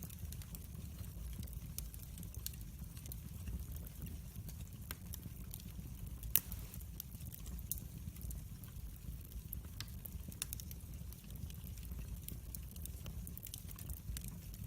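Wood fire burning in a fireplace: a steady low rumble with scattered crackles and pops, the loudest pop about six seconds in.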